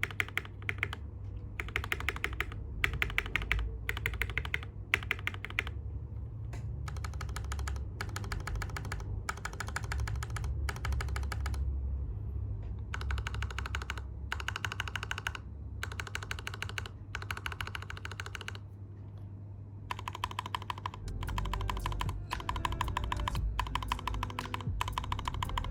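Mechanical keyboard fitted with stock, unlubricated Gateron Milky Black linear switches, its stabilized large keys pressed in quick runs of keystrokes with short pauses between runs.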